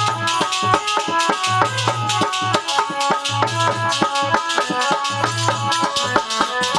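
Instrumental passage of devotional bhajan music with no singing: a fast melody of short notes over steady rattling hand percussion, with a low droning note that comes and goes in a regular cycle.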